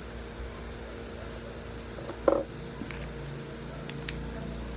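Steady electrical room hum, with faint clicks of a small plastic cosmetic tube being handled and opened by fingers, and one short dull knock a little over two seconds in.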